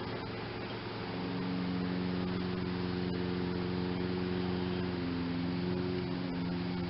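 A steady low mechanical hum with a few overtones, its pitch shifting slightly a couple of times, under faint clicks of a drive belt being worked onto a mower deck's pulleys.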